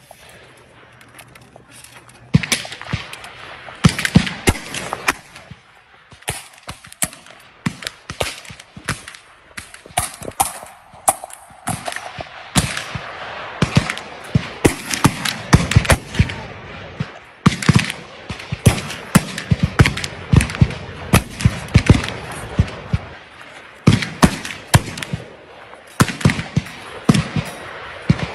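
Many black-powder muzzleloading muskets firing along a line, loud irregular shots that overlap in a steady crackle of gunfire, some louder than others. After a single shot at the start, the firing thickens about two seconds in.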